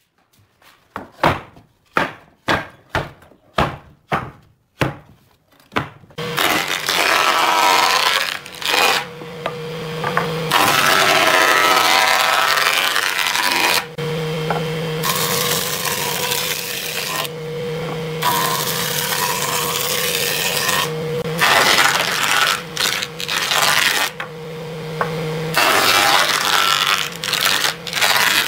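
About nine sharp knocks, roughly two a second. Then a jointer-planer running: a steady motor hum under the cutting noise of a wooden board being fed over the cutterhead, dropping away briefly several times between passes.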